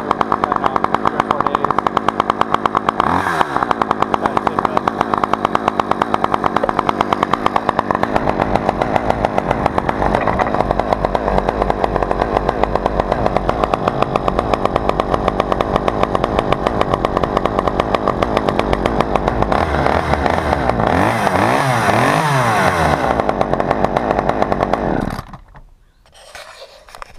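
Husqvarna T435 top-handle chainsaw's two-stroke engine running steadily. It is revved up and down several times near the end, then cuts off abruptly.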